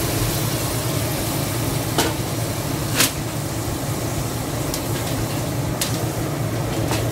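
A steady low hum and hiss of kitchen machinery, crossed by a few sharp knocks of a metal pan against an aluminium cooking pot as masala is tipped out, two of them about a second apart near the middle.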